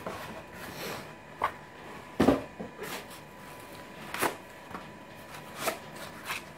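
Unpacking noises: a metal network switch handled in its cardboard box and its white foam end caps pulled off, giving scattered short rustles and knocks, the loudest about two seconds in.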